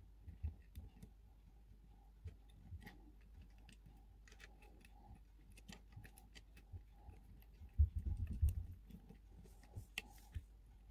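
Faint clicks and taps of fingers handling tiny miniature food pieces and a small plastic plate on a toy table, with a cluster of low bumps about eight seconds in, over a faint steady hum.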